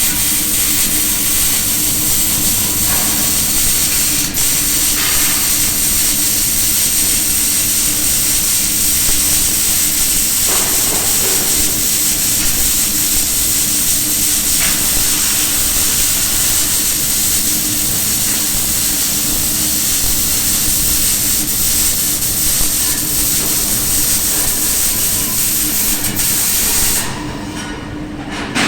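MIG/MAG welding arc crackling and hissing steadily over a steady hum while a vertical-up (PF position) weld is run. The arc cuts out near the end.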